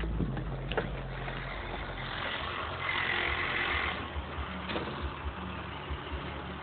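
Deep bass from MTX Terminator car-audio subwoofers playing music, heard as broken low notes with little of the rest of the music. A rushing hiss runs for a couple of seconds in the middle, and there are a few handling clicks from the phone.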